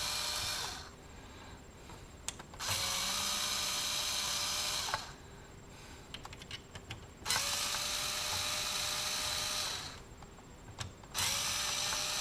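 Small electric screwdriver backing out the long screws that hold a CB radio's faceplate. It runs in spurts of two to three seconds, each starting with a short rising whine, with light clicks and taps in the gaps between.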